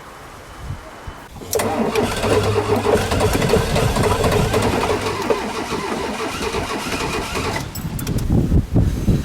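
Trabant 601 being cranked on a cold start: the starter turns its two-cylinder two-stroke engine, which sputters without catching. The cranking starts about a second and a half in, runs steadily for about six seconds and then drops to a lower, uneven rumble.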